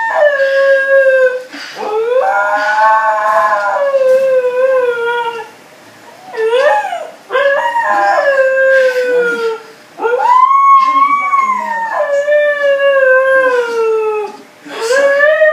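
Siberian husky howling: a string of long howls with short breaks between them, each rising and then sliding slowly down in pitch.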